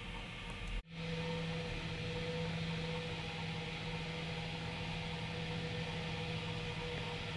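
Steady hiss with a low, even hum. It breaks off abruptly about a second in, then resumes with a steady low tone and a fainter higher tone held over the hiss.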